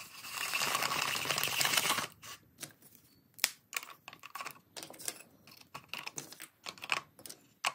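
Chunks of kiln-dried cherry burl rattling and scraping against each other and the plastic mixing cup for about two seconds as the cup is wiggled. After that come scattered light wooden clicks and knocks as more small pieces are pushed in among them.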